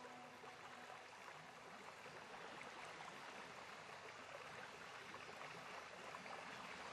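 Faint steady rush of running water, like a flowing stream, in a soundtrack. A held low musical note fades out about a second in.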